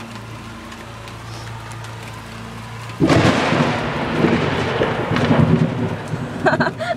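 Rain falling with a steady low hum, then about three seconds in a sudden loud thunderclap that rolls on as rumbling thunder to the end.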